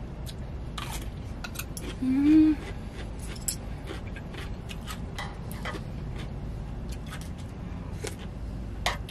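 Eating sounds: chopsticks and a fork clicking against a stainless steel cup and plate, and crunchy chewing of young-radish kimchi. About two seconds in comes a short hummed voice sound that rises slightly in pitch.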